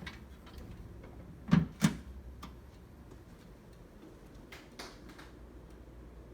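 Clicks of buttons being pressed on a Simplex 4010 fire alarm control panel during a system reset: two sharp, louder clicks a quarter second apart about a second and a half in, then a few fainter clicks.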